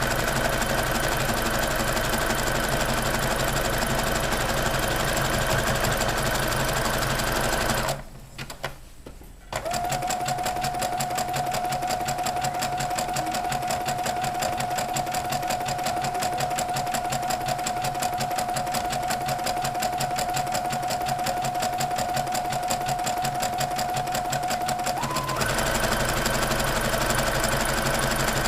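Sewing machine running a zigzag stitch, its needle beating in a fast, steady rhythm, finishing the raw edge of a seam. It stops briefly about eight seconds in, then starts again with a slightly different tone, which shifts once more near the end.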